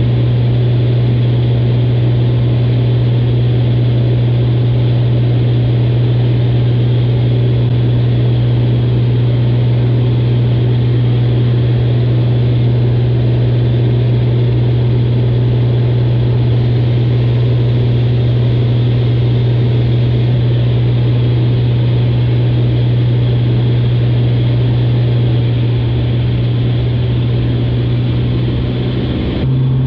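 Steady low drone of a single-engine light airplane's piston engine and propeller, heard inside the cabin in flight. The drone wavers and dips slightly near the end.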